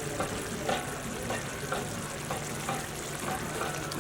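Food sizzling in a hot pan while a ladle stirs and scrapes it, about two strokes a second.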